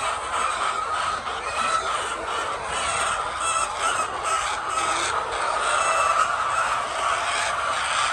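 A large flock of laying hens clucking and calling all at once, a steady, dense mass of overlapping calls with no pauses.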